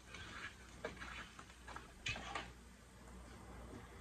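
A few faint plastic clicks and handling sounds as the pump filter cap of a Black+Decker portable washing machine is twisted loose.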